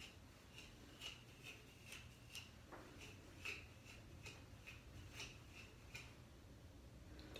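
Faint scratchy ticks of a metal afro pick being drawn through curly hair, about two strokes a second.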